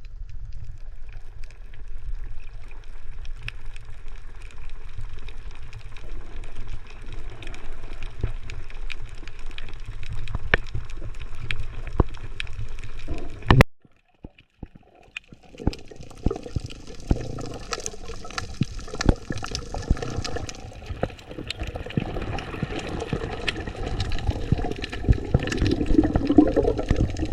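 Underwater sound from a snorkeler's camera: a steady low water rumble with many scattered clicks and crackles. About 14 seconds in it cuts off abruptly and picks up again as a brighter watery wash, still full of clicks.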